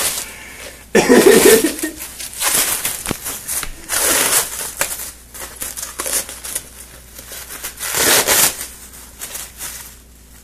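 Clear plastic wrapping, stretch film and bubble wrap, crinkling and tearing as it is pulled off a wrapped box by hand, in uneven bursts. The loudest bursts come about a second in, around four seconds and near eight seconds.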